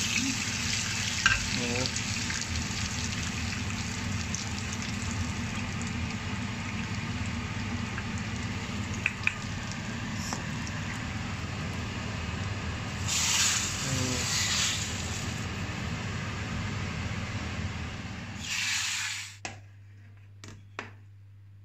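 Dried mint sizzling steadily in hot oil in a small stainless frying pan, stirred with a wooden spoon: the mint-oil topping for tripe soup being made. The sizzle cuts off near the end, followed by a few light clicks.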